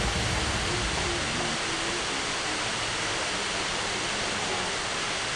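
Steady rush of a waterfall pouring into a pool. The last of some background music fades out in the first second or so.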